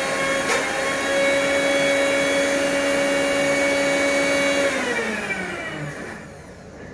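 An electric appliance motor running steadily with a constant hum and whine, then switched off about five seconds in and spinning down, its pitch falling as it fades.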